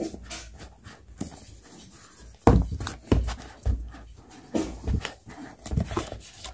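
Hands handling a shrink-wrapped cardboard phone box while opening it: irregular rustling and rubbing of the plastic wrap with several short knocks of the box against the table, the loudest a little past two seconds in.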